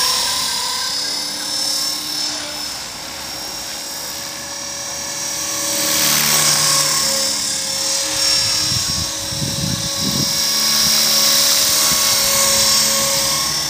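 EXI 450, a 450-size RC helicopter, in flight: its motor and rotor give a steady high-pitched whine that swells louder and fades as it manoeuvres, loudest about halfway through and again near the end.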